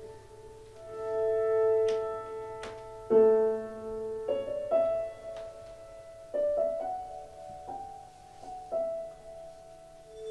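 Slow piano music: sparse notes and chords that enter one at a time and ring on.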